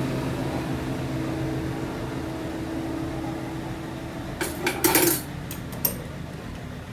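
Lathe running with a steady hum that fades away over the first few seconds, then a quick clatter of metal clinks and clanks about four and a half seconds in, with two lighter clinks just after.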